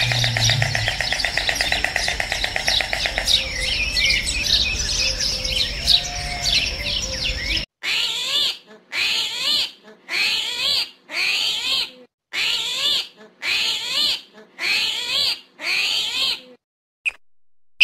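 Dense chirping and trilling birdsong with insect-like chirring. After a sharp cut it gives way to a run of about nine short bursts of chirping calls, roughly one a second, which stop abruptly.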